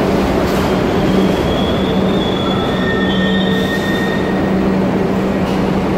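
Kawasaki R62 subway train slowing as it pulls into the station, with a steady rumble and hum of the cars rolling past. High-pitched squealing comes in about a second in and lasts a few seconds.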